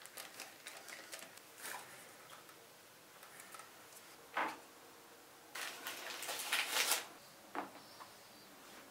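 Small kitchen handling sounds: a metal spoon scraping and tapping as choux paste is spread in a parchment-lined cake pan. Then a knock and a couple of seconds of louder rustling and scraping, and a second knock near the end.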